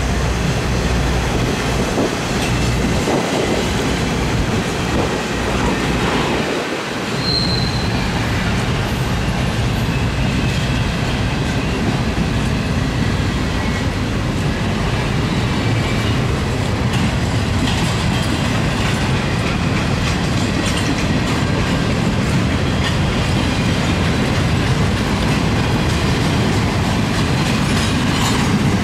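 Intermodal freight train's cars rolling steadily past at track side: a continuous rumble and clatter of steel wheels on the rails.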